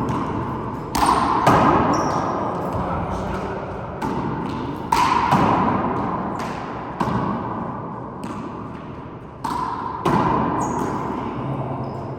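A handball rally: a small rubber handball is struck by hand and smacks off the court's walls and floor, about eight sharp hits spaced roughly a second apart, each ringing away after it.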